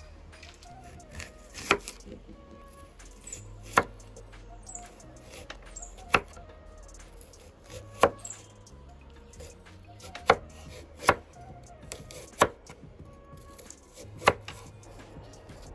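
Kitchen knife slicing through crisp rose apples and knocking on a wooden cutting board: about eight sharp chops, one every one to two seconds.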